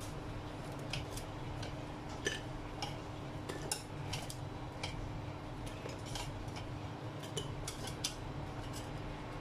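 Cooking chopsticks clicking and tapping against an air fryer basket and each other as fried meatballs are picked out, a dozen or so light irregular clicks over a steady low hum.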